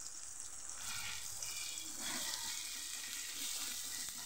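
Chopped green onions and tomatoes sizzling steadily in oil in a steel kadai, with the spices just added on top; a spatula starts stirring them near the end.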